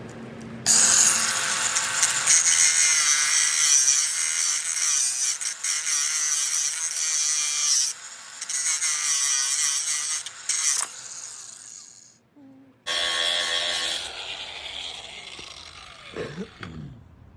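A small high-pitched power tool cutting through a BMW E36 side mirror's arm at its base plate. It runs for about eleven seconds, stops briefly, then starts again and fades out.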